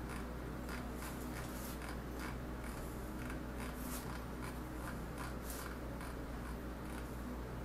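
Computer mouse scroll wheel and button clicking in short, irregular runs as a document is scrolled, over a steady low electrical hum.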